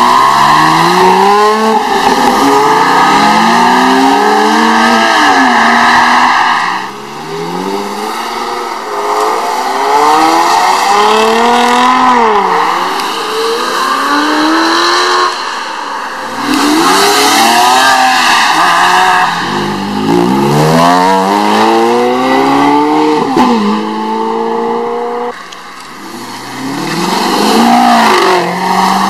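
Sports cars accelerating hard away one after another, each engine revving up and dropping back through repeated gear changes. A Porsche 911 GT3's flat-six opens the sequence, and Maserati V8s, a Quattroporte and then a GranTurismo, follow.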